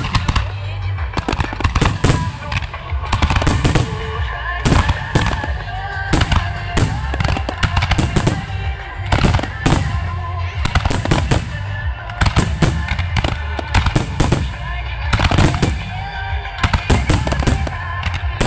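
Professional display fireworks firing and bursting at close range: dense volleys of sharp bangs and crackle, several a second, over a steady low rumble.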